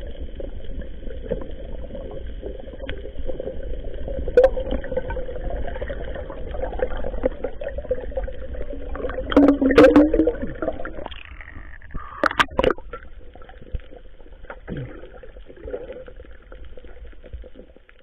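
Muffled underwater sound heard through an action camera's waterproof case: a steady low rumble with a faint hum, broken by sharp knocks about 4 s in, a loud cluster around 10 s and two more about 12 s in.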